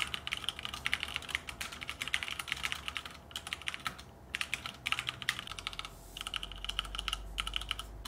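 Typing on a G.Skill KM360 tenkeyless mechanical keyboard with Cherry MX Red linear switches and ABS keycaps: a rapid, dense patter of key clacks, broken by a few brief pauses.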